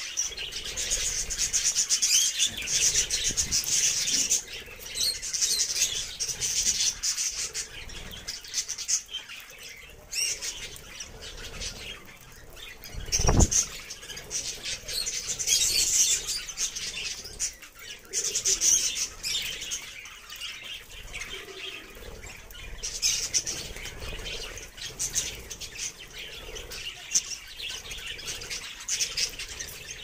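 A flock of budgerigars chattering and warbling continuously in fast, busy trills, with wing flutters among them. A single dull thump about halfway through stands out as the loudest sound.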